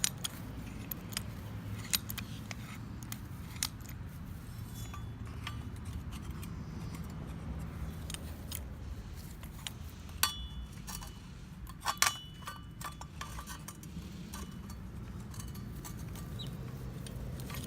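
Scattered metallic clicks and clinks of hand tools working against the steel of a machete's handle rivets, with two louder ringing taps about ten and twelve seconds in, over a steady low hum.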